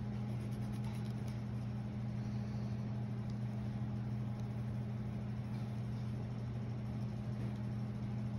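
Steady low mechanical hum of room machinery running without change, with faint scratching of a graphite pencil tracing on tracing paper.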